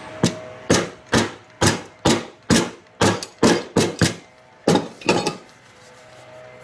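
A hammer tapping wooden toy parts together, about a dozen sharp knocks at roughly two a second that stop a little after five seconds, driving a wheel onto its axle.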